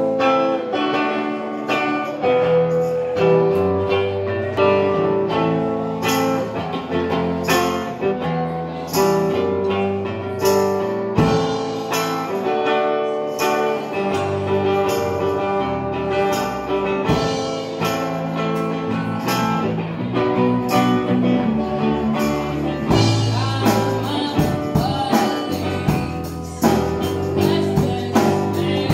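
A live band playing a bluesy song: electric guitar and bass guitar over a steady drum-kit beat, with a woman singing lead.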